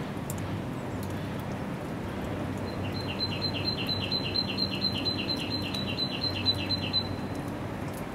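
A small songbird sings a quick run of about fifteen repeated high two-part notes, about four a second, starting about three seconds in and lasting about four seconds. Under it is a steady low rumble.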